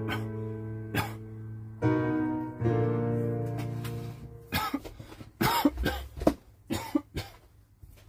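Yamaha digital piano holding sustained major-seventh chords, changing chord twice, then a person coughing repeatedly, a run of sharp coughs starting about four and a half seconds in.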